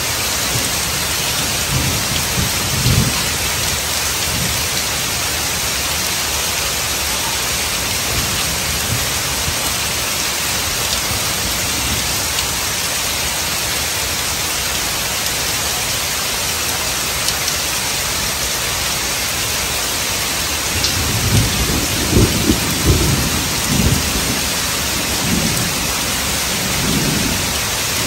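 Heavy rain falling steadily on pavement and puddles. Thunder rumbles under it: briefly about three seconds in, then longer and louder for several seconds in the last third.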